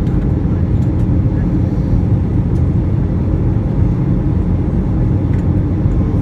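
Steady low roar inside the cabin of an Airbus A321 in flight: engine and airflow noise.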